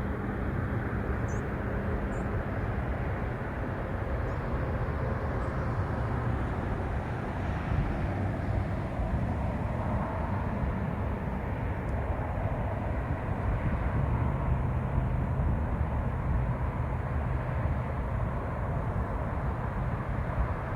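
Steady low outdoor rumble with a faint hum in it, and a few faint high chirps in the first few seconds.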